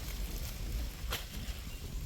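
Wind rumbling on the microphone, with a few brief rustles, the sharpest about a second in.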